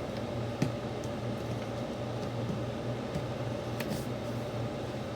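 Steady mechanical hum, as of a fan or air conditioner, with one sharp click about half a second in and a few fainter ticks later.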